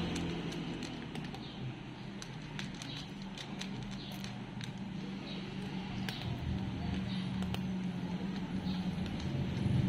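A cat crunching dry kibble: irregular sharp crunches and clicks, over a steady low hum.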